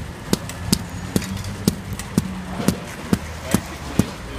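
Mallet tapping cast-in-place tactile indicator plates to bed them into wet concrete: about ten even knocks, two to three a second, each with a short dull ring.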